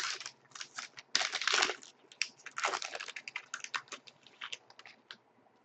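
Trading card pack wrapper crinkling and hockey cards being handled and flicked through: a run of quick crackles and clicks with short rustling bursts, dying away near the end.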